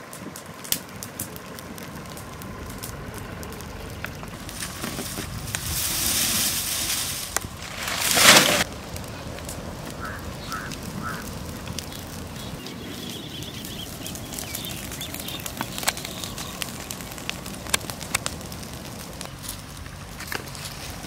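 Open fire of dry brush and palm fronds burning around oil tins, crackling and popping throughout. A rush of noise swells from about five seconds in and cuts off suddenly just past eight seconds.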